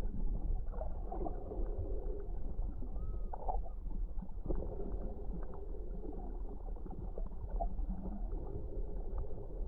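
Underwater sound picked up by a GoPro in a dome housing held below the surface: a muffled low rumble of water moving against the housing, with scattered small clicks and faint gurgling.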